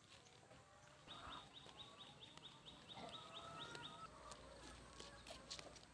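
Faint rural outdoor ambience: a rapid run of short, high bird chirps, about five a second, for roughly three seconds, with quieter scattered bird calls.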